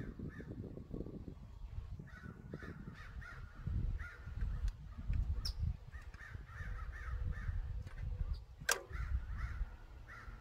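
Crows cawing in repeated series over a low rumble, with one sharp click about nine seconds in.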